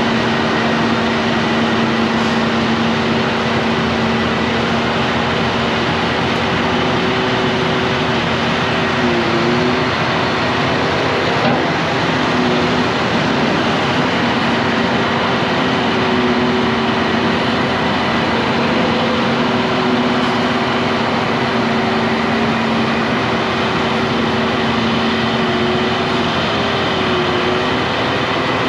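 Heavy engine running steadily under a constant rush of noise, its pitch dipping briefly a few times.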